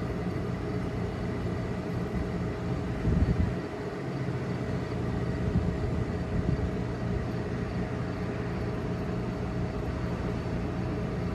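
1978 Hotpoint room air conditioner running steadily: the blower fan and the rotary compressor hum on an even tone, with refrigerant flowing as the unit begins to cool. A brief louder low bump comes about three seconds in.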